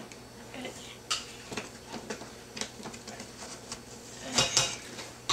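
Scattered light clicks and taps of handling noise, with two louder knocks close together about four and a half seconds in.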